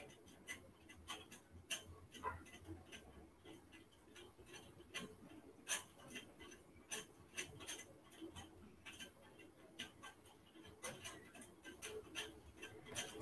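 Near silence with faint, irregularly spaced small clicks.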